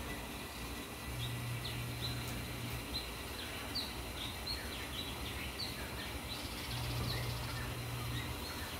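Birds giving many short, high chirps, several a second, against steady outdoor background noise. A low steady hum comes in twice, each time for about a second and a half.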